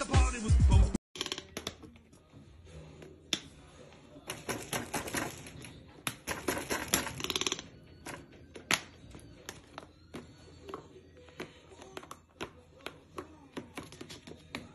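Music for about the first second, then a toucan's bill clattering among plastic toys in a tub. There are irregular sharp clicks and knocks, with a busier stretch of rattling in the middle.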